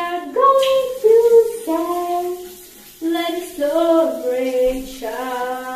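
A woman singing a tune in long held notes that step up and down in pitch, over the hiss of a running shower.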